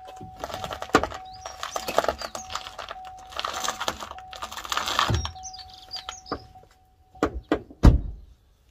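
Front steering of a jacked-up Vauxhall Astra J being turned to full lock, its bare hub and brake caliper swinging round: scraping and creaking with many sharp clicks and knocks over a steady high tone that stops about seven seconds in. A heavy thunk comes near the end.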